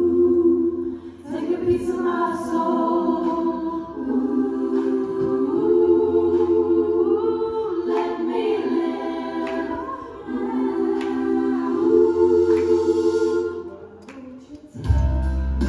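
A vocal group singing a cappella in close harmony through the venue's PA, long held chords with short breaks between phrases. Near the end, low instrumental backing comes in under the voices.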